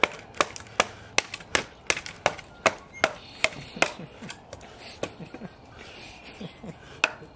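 Rapid, evenly paced wooden knocks, about two or three a second, of a Mora Companion knife being batoned or hacked into a piece of firewood, then a short lull and one more strike near the end.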